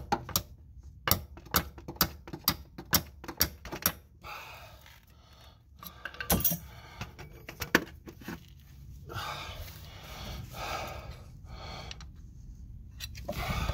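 A flat steel hand tool working at an old axle seal in a transaxle bore, metal on metal: a quick run of sharp clicks, two or three a second, over the first four seconds, a couple of single clicks later, then scraping.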